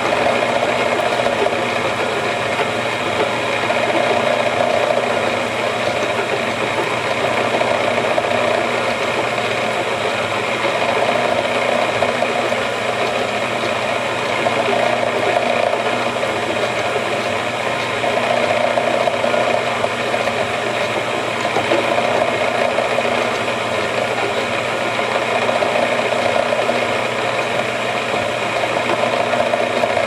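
Tap spinning in a machine spindle, hobbing teeth into a threaded bolt pressed against it: a steady machine drone with metal-cutting noise that swells and eases every few seconds.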